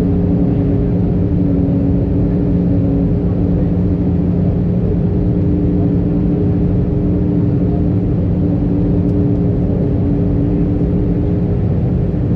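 Cabin noise of an Airbus A319 airliner descending on approach: a steady low rumble of engines and airflow with several even engine hum tones, one of which shifts slightly in pitch a few times.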